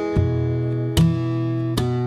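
Background music: acoustic guitar strummed in chords, with fresh strums about every second.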